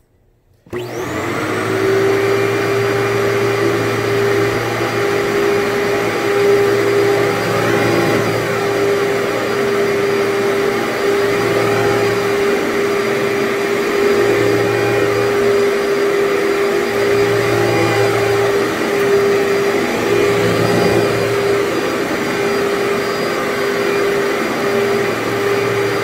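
Workhorse commercial upright vacuum cleaner switching on a moment in and spinning up to a steady high whine, then running while it is pushed back and forth over carpet, its sound swelling and dipping every couple of seconds. It is pulling dry soil out of the carpet.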